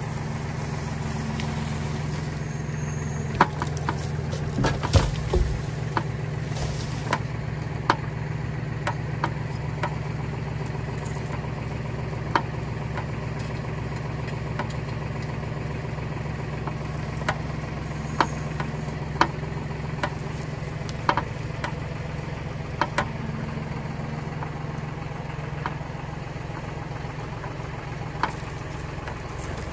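An engine idling steadily, with scattered sharp knocks and clicks over it.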